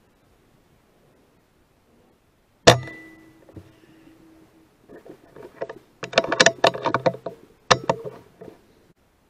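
A single shot from a sub-12 ft-lb .177 PCP air rifle, a Brocock Bantam Sniper, about two and a half seconds in: a sharp crack with a brief ringing tone after it. From about five seconds in comes a burst of clicking and rattling, ending in one sharper click.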